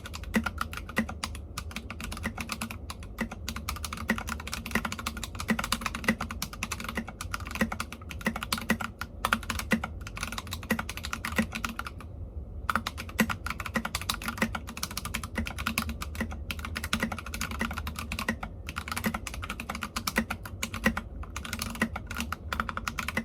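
Mechanical keyboard with unlubed KTT Matcha switches being typed on steadily, a fast stream of key clicks and clacks with a short pause about halfway through.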